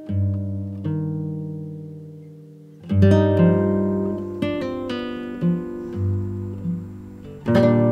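Background music on a plucked acoustic guitar. A chord rings out and fades over about three seconds, a new phrase of picked notes over bass notes begins about three seconds in, and another chord is struck near the end.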